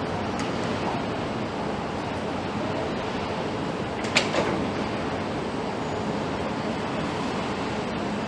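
Steady factory-floor noise as a car creeps slowly onto a roller test stand, with one sharp metallic clank about four seconds in.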